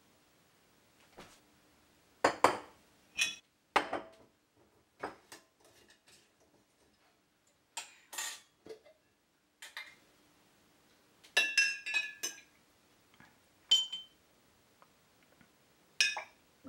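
Glassware being handled on a table: a glass mason jar with a metal screw lid and a glass mug give about a dozen separate clinks and knocks, the loudest about two seconds in. A cluster of ringing glass clinks comes a little past the middle.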